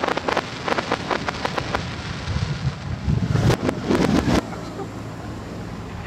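Fireworks display played backwards: a quick run of crackling from bursting stars, then the rumble of a shell burst swelling up and cutting off suddenly about four and a half seconds in, the reversed echo of the boom.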